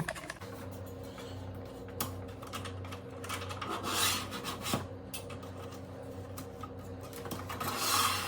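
Rubbing and sliding of a ring light's tripod stand being handled and extended, with a couple of sharp clicks, over a steady low hum.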